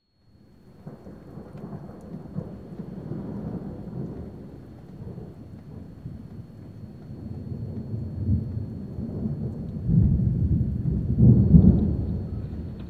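Thunder rumbling in long rolls, building to its loudest peals about ten and eleven and a half seconds in, then easing off.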